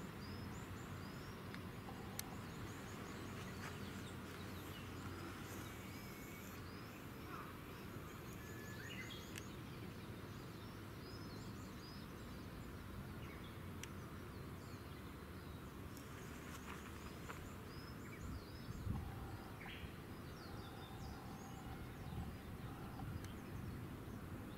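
Open-air ambience: a steady low rumble of background noise with small birds chirping on and off, and one brief low bump about three quarters of the way through.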